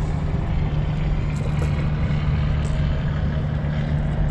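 A motor on the boat running with a steady, low hum, plus a few faint ticks.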